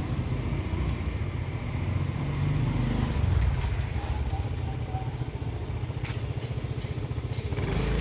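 Motorcycle engine running steadily at low speed, a continuous low rumble.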